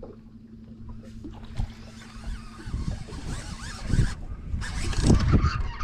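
Baitcasting reel being cranked on a crankbait retrieve, a steady hiss that stops briefly about four seconds in, over a steady low hum, with wind buffeting the microphone near the end.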